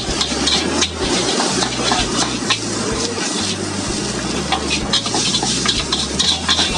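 Metal spatula scraping and clanking against a large steel wok, over and over, as fried rice is stir-fried, with a steady sizzle of the rice frying underneath.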